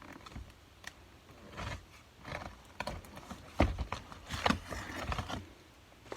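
Cardboard and plastic packaging being opened and handled: a string of irregular crinkles, rips and light knocks, the loudest a little past the middle.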